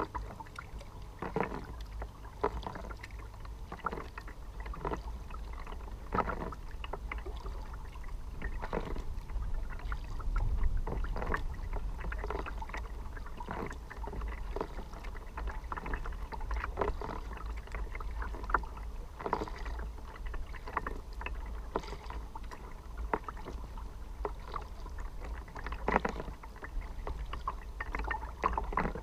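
Kayak paddle strokes dipping into the river and dripping, about one a second, with water slapping and gurgling at the kayak's hull. A low steady rumble lies under it.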